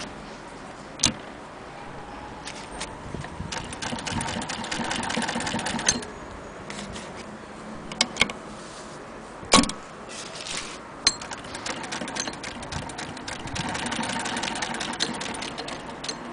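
Singer 99K hand-crank sewing machine's mechanism turning over with a rapid metallic clatter, in two runs of a few seconds each, one about a quarter of the way in and one near the end. Sharp single knocks and clicks come between them, the loudest about two-thirds of the way through.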